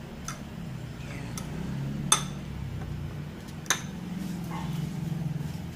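A few sharp clicks and taps of hands and a fork against ceramic bowls and plates while a chicken nugget is dredged in flour, egg and breadcrumbs, the loudest about two seconds in, over a steady low hum.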